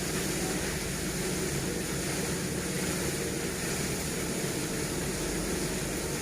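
Steady machinery drone with a hiss, unchanging in pitch and level.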